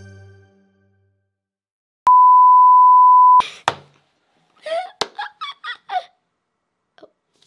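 A steady, single-pitched electronic beep tone lasting just over a second, cut off by a couple of sharp knocks, then a short run of quick laughs from a girl's voice.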